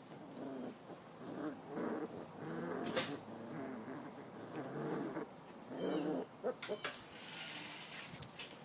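Rottweiler puppies growling and whining in a string of short bursts as they play, with a couple of sharp clicks in between.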